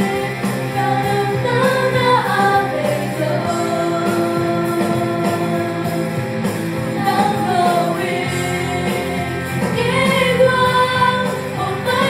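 Four women singing a song together into microphones over steady instrumental backing, amplified through the hall's sound system.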